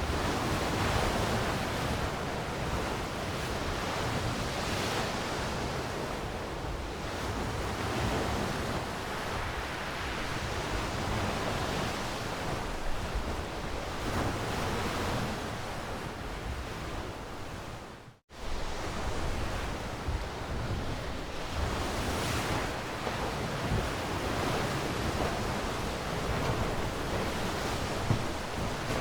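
Ocean waves breaking and washing on a shore: a steady rush of surf that swells and ebbs every few seconds. The sound cuts out for a split second about two-thirds of the way through.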